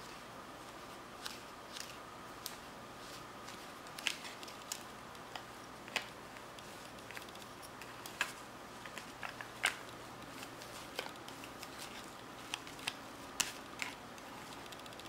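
Small plastic spatula scraping and tapping against a Popin' Cookin' plastic tray while stirring a powder mix into a damp dough: irregular light clicks and scrapes.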